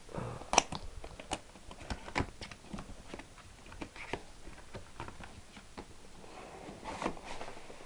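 Cardboard box being handled and opened by hand: irregular taps, clicks and scrapes of the cardboard, the sharpest about half a second in.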